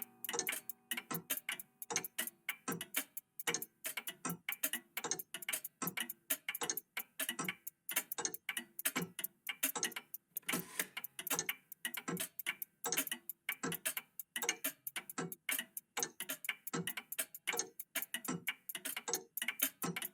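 Several old mechanical clocks ticking at once, their ticks overlapping unevenly, several a second.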